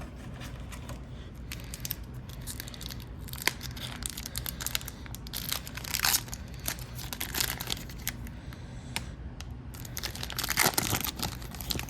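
Wrapper of a hockey card pack crinkling and tearing as it is opened by hand: scattered crackles throughout, with louder rips about six seconds in and again near the end.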